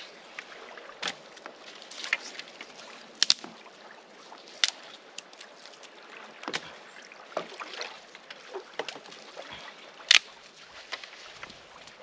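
Small campfire of birch bark and kindling crackling, with irregular sharp snaps every second or so over a faint steady hiss.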